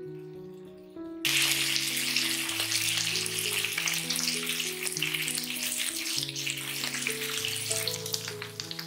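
Chicken wings sizzling in oil in a nonstick frying pan, a dense sizzle with scattered sharp pops that starts suddenly about a second in. Soft background music plays underneath.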